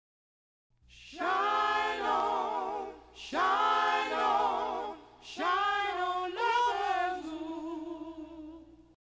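Unaccompanied singing: three long sung phrases with vibrato, the first starting about a second in and the last fading out near the end.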